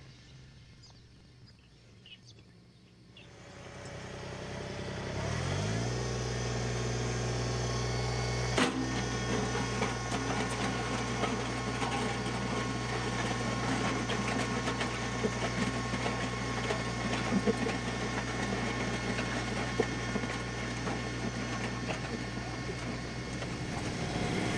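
LS MT125 compact tractor's diesel engine coming up to speed a few seconds in, then running steadily as it drags a box blade along a gravel driveway, with gravel crackling under the blade. One sharp knock about nine seconds in.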